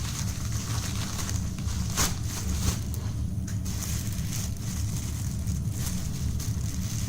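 Packaging rustling and crinkling as items are pulled out of a mail-order parcel, with a sharp snap about two seconds in, over a steady low hum.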